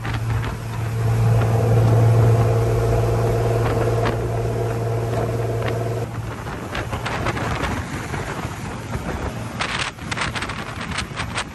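Yamaha DX39C boat running at speed: a steady engine drone over rushing water and spray along the hull. About six seconds in the drone drops away, leaving rushing water and wind buffeting the microphone.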